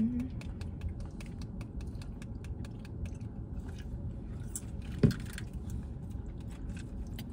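Light crinkling and clicking of fast-food packaging and a sauce packet being handled, with one sharper knock about five seconds in.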